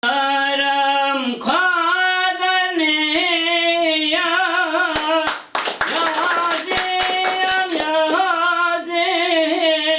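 A man singing a Kurdish song unaccompanied in a high voice, holding long, wavering, ornamented notes. Hand claps come in a run midway while the voice carries on.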